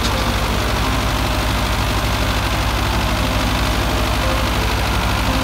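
Massey Ferguson 385 tractor's four-cylinder diesel engine running under heavy load as it tows a trolley stacked with potato sacks, a steady low throb.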